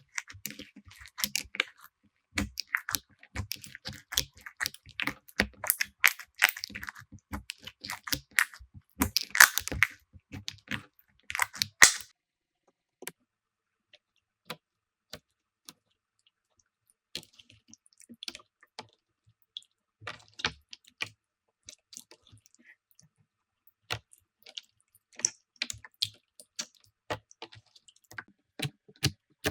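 Slime being squished and pressed by hand, making a dense run of small crackles and pops for about twelve seconds. Then come a few scattered clicks, and the crackling returns, sparser, from about seventeen seconds on.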